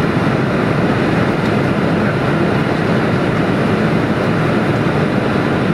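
Boeing 747-400 flight deck noise in descent on approach: a steady rushing of air over the cockpit with the engines running, even and unbroken.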